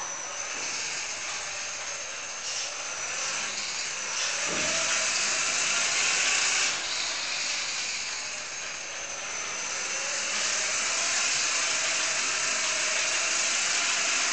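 Brushless motor spinning a small RC airplane propeller: a steady high-pitched whine with a rush of air, growing louder about four seconds in, easing off briefly around eight seconds, then louder again from about ten seconds.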